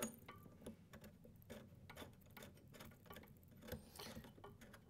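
Faint scattered clicks and handling noise as a TIG torch's 9-pin control plug is fitted and twisted into the socket on the welding machine's front panel.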